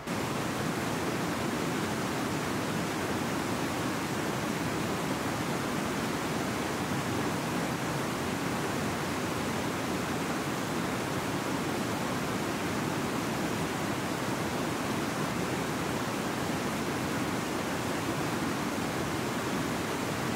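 Mountain creek rushing over a rocky, boulder-strewn bed: a steady, even rush of water.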